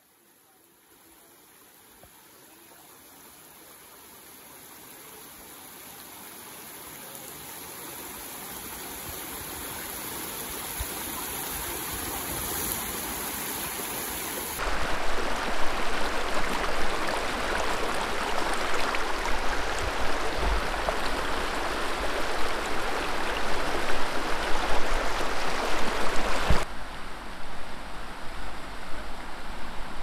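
Shallow hill stream rushing over rocks. The sound fades in slowly from near silence over the first half. About halfway through it cuts abruptly to a loud, full rush of water, which drops a little after another cut near the end.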